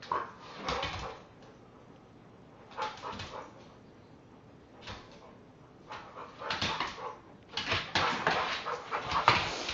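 Two dogs play-fighting: repeated short bursts of growling, whining and yips, coming in clusters and busiest and loudest in the last couple of seconds.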